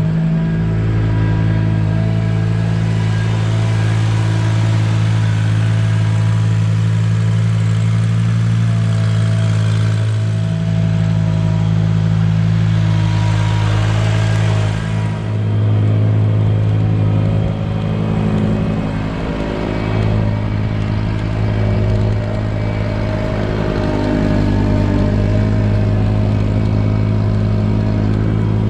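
Ventrac 4500Z compact tractor's engine running steadily as the machine is driven, with the KC220 stump grinder attachment mounted on the front.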